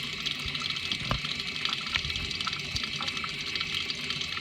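Water running steadily from the newly installed Kinetico MACguard drinking-water faucet into the sink, flushing the new filter cartridge through at start-up. A few faint knocks sound under the hiss.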